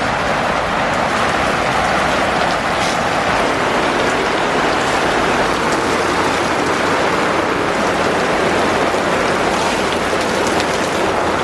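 Rain pouring down hard, a loud, steady, even hiss with no let-up.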